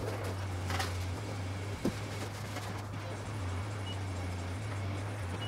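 Masking tape being pulled off its roll and pressed down along a windshield strip: a brief rasp about a second in and a click soon after, over a steady low hum.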